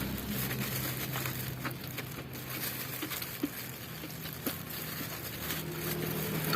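Small clicks and crinkles of someone eating, over the low, steady hum of motor traffic passing on the road.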